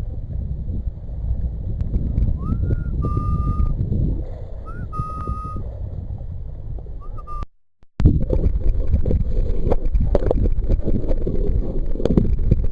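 Wind buffeting the microphone and water sloshing around a sea kayak. Three short whistle-like notes each slide up and then hold, with the last about seven seconds in. The sound cuts out briefly, then the water noise comes back with scattered splashes.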